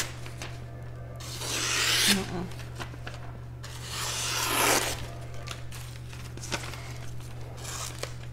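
A Rowland Cutlery 240mm kiritsuke gyuto slicing through paper towel twice, as a test of the edge's sharpness. Each cut is a rasping tear that builds for about a second and then stops sharply.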